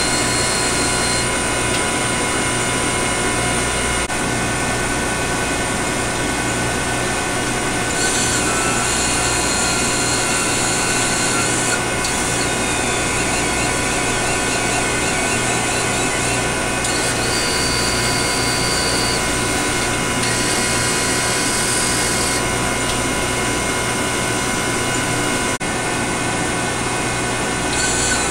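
Motor-driven bellows drive of a MAT 253 isotope-ratio mass spectrometer running during bellows calibration, over a steady machine hum with several fixed whining tones. A higher hiss cuts in and out several times, each for a few seconds.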